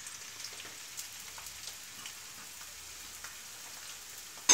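Chopped onions frying in hot coconut oil in a wok, a steady sizzle. A sharp knock near the end.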